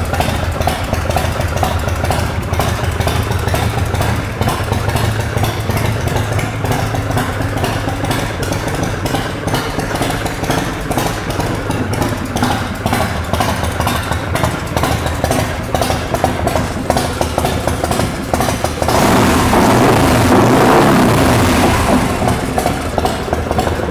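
A 100 cubic inch Ultima V-twin engine in a custom motorcycle, running steadily at idle after a start on choke. It gets louder for about three seconds near the end.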